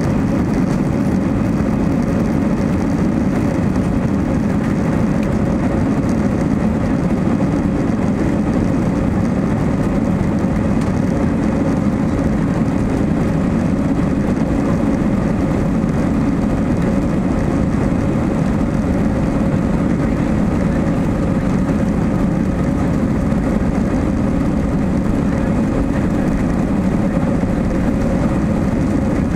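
Airbus A320-200's jet engines and a steady rumble heard from inside the passenger cabin as the airliner rolls along the runway. The drone holds level, with no rise or fall.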